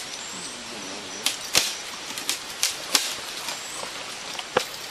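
A series of sharp clicks and knocks at uneven intervals, about seven of them, the loudest about a second and a half in, over a faint steady forest background.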